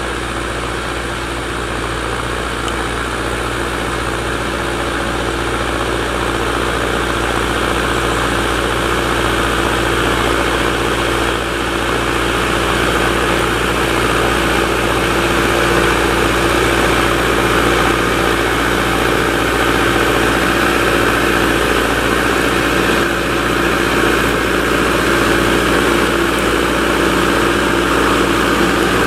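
Same Explorer 90 tractor's diesel engine running steadily under load while it pulls a five-shank subsoiler through the ground, growing gradually louder as the tractor comes closer.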